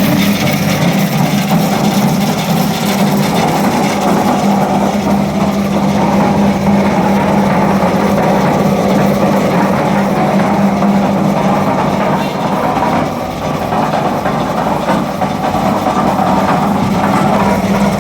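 One-bag concrete mixer running on its 5 hp three-phase electric motor: a loud, steady mechanical hum with a rough, clattering noise over it. The sound dips slightly about two-thirds of the way through.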